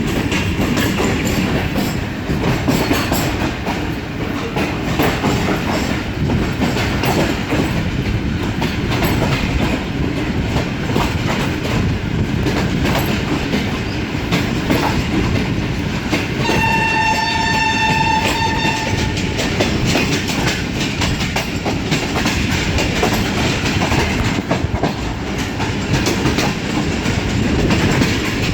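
Passenger train running fast, wheels clattering steadily over the rail joints. About two-thirds of the way through, a train horn blows once for about three seconds.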